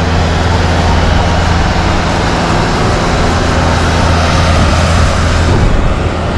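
A steady low engine rumble with a broad rushing noise over it, unchanging throughout and dipping slightly near the end.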